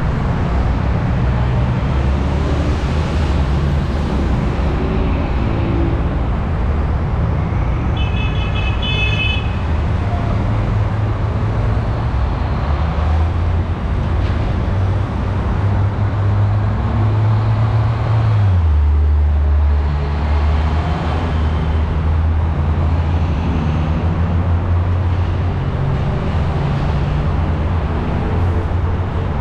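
Heavy road traffic on a multi-lane urban highway: a steady low rumble of bus and truck engines over general traffic noise. A short car horn toot sounds about eight seconds in, and the low engine drone drops in pitch a little past halfway.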